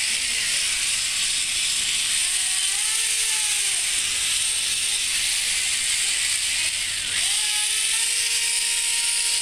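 Electric gear motors and gearboxes of a radio-controlled Elenco OWI All Terrain Robot forklift kit whirring and rattling as the tracked robot drives. A motor whine rises in pitch about two and a half seconds in and again about seven seconds in, then holds steady.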